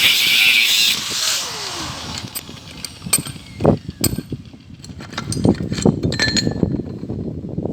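A power tool working metal runs loudly for about a second, is switched off and winds down with a falling pitch, and is followed by scattered clinks and knocks of metal parts being handled.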